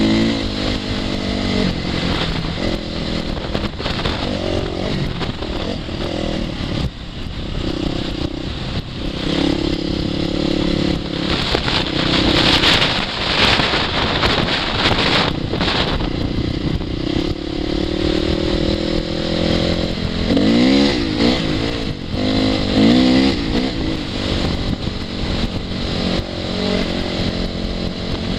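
2002 Honda CRF450R's 450cc single-cylinder four-stroke engine being ridden, its pitch rising and falling as the throttle opens and closes, with a few quick revs about twenty seconds in. Wind noise runs underneath.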